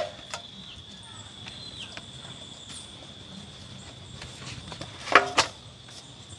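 Steady high-pitched insect drone, typical of crickets, with a short pitched voice-like call about five seconds in.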